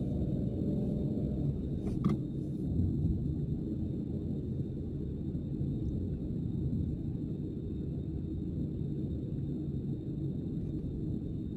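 Steady low rumble of a car driving on city streets, heard from inside the car: road and engine noise. A short knock about two seconds in.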